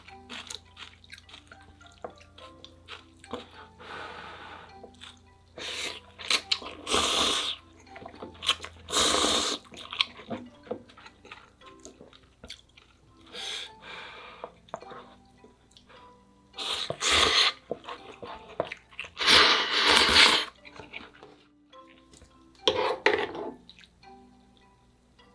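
Ramyeon noodles slurped in about seven loud bursts, each up to a second or so long, with many small clicks of utensils against the bowl between the slurps.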